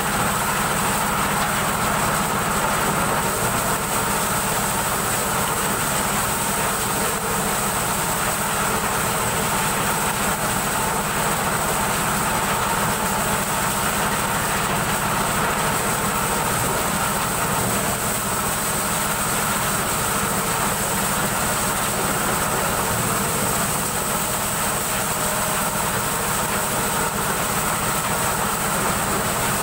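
Engine-driven corn sheller running steadily as cobs are fed in and shelled, a loud continuous machine noise.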